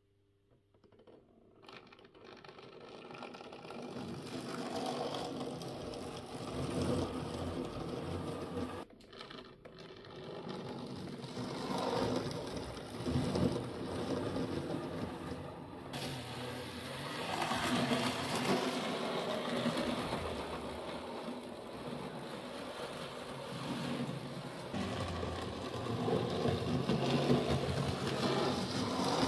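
Arnold Rapido N-scale model steam locomotive and passenger coaches running on the track, with the small electric motor whirring and the wheels clattering along the rails. It starts from near silence about a second in and grows louder over the next few seconds as the train gets under way, then runs on steadily with slow swells as it comes nearer and moves away.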